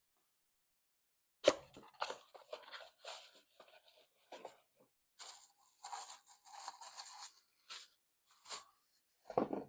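A small cardboard box being opened and a cup's packaging wrap crinkled and pulled off by hand: a sharp knock, then irregular crunching and rustling with a few clicks.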